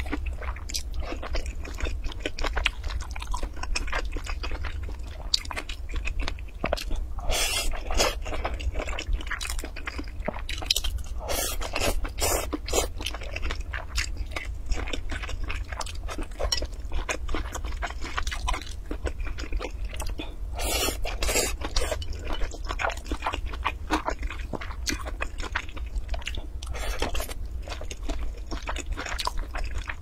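Close-miked chewing and biting of spicy stir-fried flat noodles and sausage: continuous wet mouth clicks and smacks, with several louder bursts spread through, over a steady low hum.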